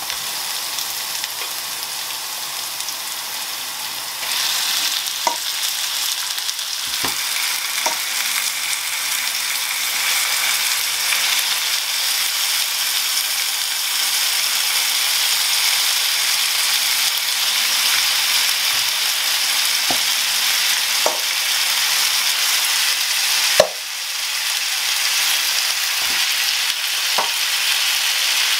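Marinated chicken pieces sizzling as they fry in hot oil with browned ginger and garlic in a non-stick frying pan. The sizzle gets louder about four seconds in as more pieces go in. Tongs and a spatula click against the pan now and then, with one sharp knock about two-thirds of the way through.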